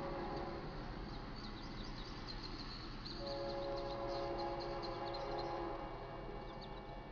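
Distant diesel locomotive horn of GE C44-9W BNSF 4658 sounding a short blast at the start and then a long blast from about three seconds in to nearly six, as it approaches a grade crossing. Over it, a rapid high ringing of the crossing bell starts about a second in as the warning lights begin flashing.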